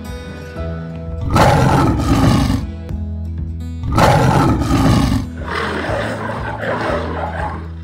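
Lion roaring: two loud roars a couple of seconds apart, then a softer third call, over background music with held notes.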